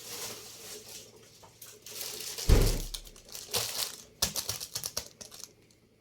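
Crinkling and rustling of packaging being handled, with one heavy thud about two and a half seconds in and a quick run of clicks and knocks near the end.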